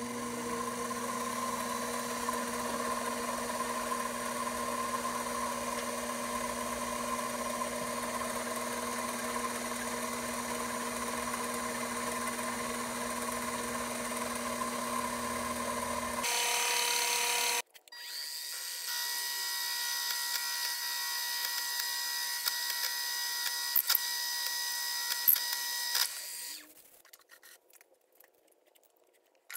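A Grizzly G0765 7x14 mini lathe runs steadily under load while a drill bit in its chuck cuts into an aluminium block on the cross slide. The machine whine changes a little past halfway, breaks off briefly, then resumes with a higher tone and a few sharp clicks. It stops shortly before the end.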